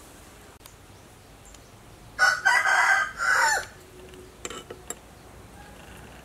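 A rooster crowing once, a call of about a second and a half about two seconds in that ends on a falling note. A few faint clicks follow about a second later.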